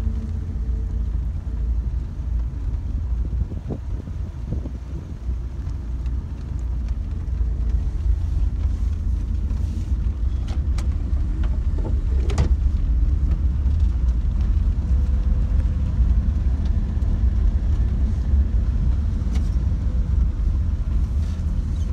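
Car driving on a wet road, heard from inside the cabin: a steady low rumble of engine and tyres, with a few short clicks around the middle.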